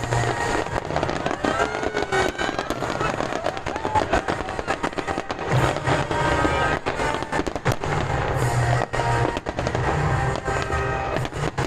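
Fireworks bursting in quick succession, with many sharp bangs and crackles, while music plays underneath.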